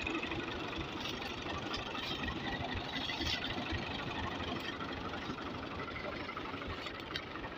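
Diesel tractor engine idling with a steady low rumble.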